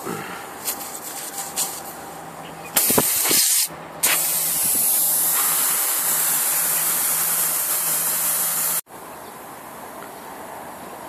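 Air hissing out of a punctured tyre through the hole being worked with a plug-kit reamer: a short burst, then a longer steady hiss of about five seconds that cuts off suddenly.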